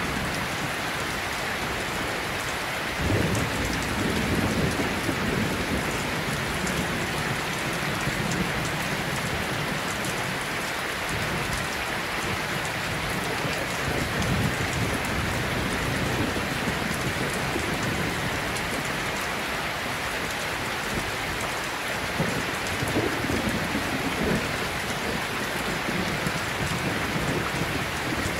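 Steady rain, with low rolls of thunder swelling about three seconds in, again near the middle and again towards the end.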